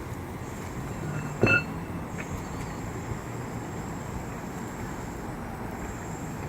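Steady low background rumble with a single short, ringing metallic clink about a second and a half in.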